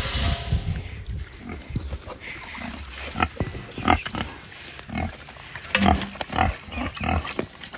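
Pigs at feeding time, making a string of short, separate calls, several sharper ones between about three and seven seconds in.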